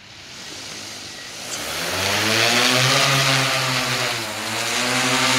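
Agricultural crop-spraying drone's rotors spinning up for takeoff: a multi-tone propeller buzz that climbs in pitch and loudness over the first two seconds, then holds steady as it lifts off, with a brief dip about four seconds in.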